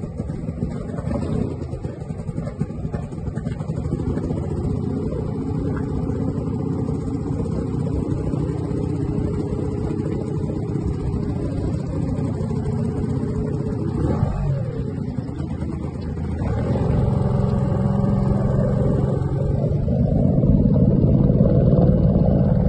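An engine running steadily with a low hum, growing louder about two-thirds of the way through and again near the end.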